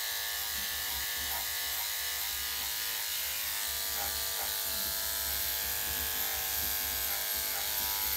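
Corded electric dog grooming clippers running with a steady, even buzz as they trim the fur under a dog's chin.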